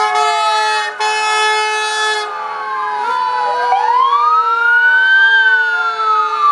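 Several fire truck sirens wailing over one another, one rising slowly to a peak about five seconds in and then falling away. In the first two seconds a fire truck air horn gives two long, steady blasts.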